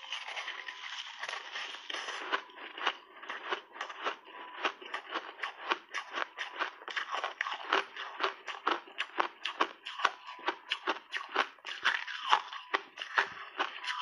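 Crunching of a block of frozen snow ice bitten and chewed close to the microphone: a dense run of crisp, rapid crackles, many a second, with sharper crunches here and there.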